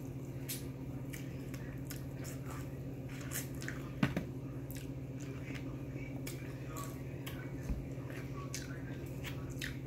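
Close-up mouth sounds of eating a chicken wing: wet chewing, lip smacks and many small clicks, with the sharpest click about four seconds in. A steady low hum runs underneath.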